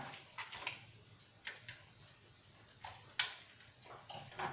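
Scattered light clicks and taps of small plastic Beyblade parts and packaging being handled, the sharpest a little after three seconds in.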